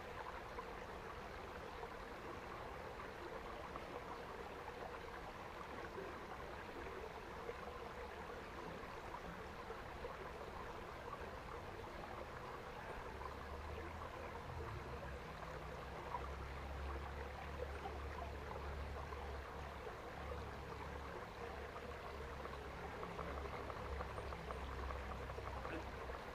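Shallow woodland stream running steadily over stones, with a low rumble coming in about halfway through.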